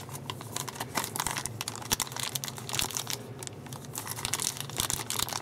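Clear plastic wrapping crinkling and crackling in irregular bursts as hands pull and fumble at it to get a small phone adapter out.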